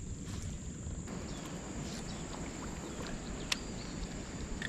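Outdoor ambience: a low rumble under a steady, high-pitched insect drone, with a few light clicks, the sharpest about three and a half seconds in.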